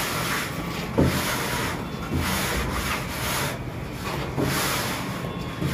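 Long straightedge (fanti) scraping across wet cement plaster on a wall in a series of back-and-forth strokes, about one a second, ruling the plaster off level.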